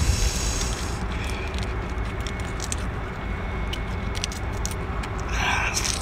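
A cooked prawn's shell being cracked and peeled off by hand, with small scattered clicks and crackles, over a steady low rumble.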